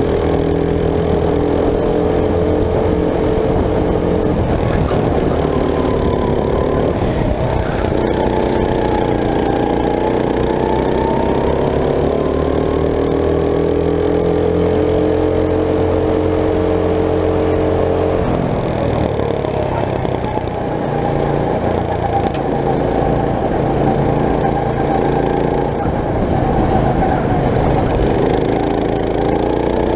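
Go-kart engine running under racing load, its pitch rising and falling as it speeds up along the straights and slows for corners. The pitch dips sharply about two-thirds of the way through, then climbs again.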